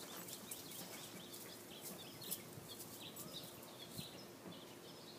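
Quiet outdoor ambience with small birds chirping here and there: many short, scattered high chirps over a faint steady hiss.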